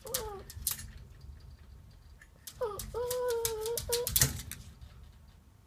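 Small dog whining twice, a short whine at the start and a longer, steady one about two and a half seconds in, begging for a toy strawberry it sees in the mirror. Light clicks and a sharper tap, as of claws on the hardwood floor, come in between.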